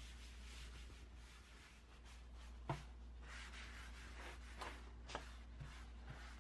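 Faint swishing of a hand wiping down a sprayed wooden desk top in repeated back-and-forth strokes, with a few light knocks against the desk.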